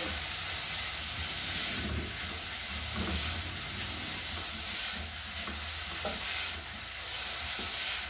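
Grated carrot, onion and garlic sizzling in oil in a stainless steel frying pan while a spatula stirs them around the pan.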